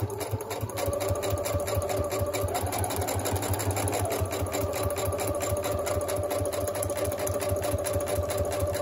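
Electric sewing machine stitching a seam through a folded paper bag. It runs at a steady speed, a motor whine under a rapid, even rhythm of needle strokes.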